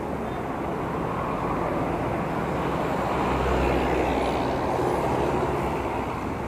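Road traffic heard from a moving bicycle: cars and vans passing close by, with steady wind and road noise, and a deeper rumble swelling about three seconds in and fading a second and a half later.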